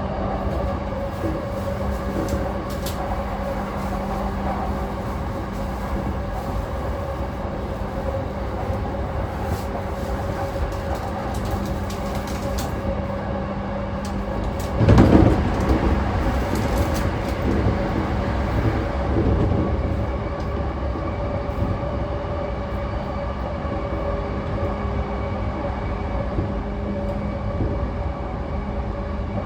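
Interior running noise of a JR East E233-5000 series motor car at speed: a steady rumble of wheels on rail with a constant whine from the traction motors and inverter, and about halfway through a loud rush lasting about a second.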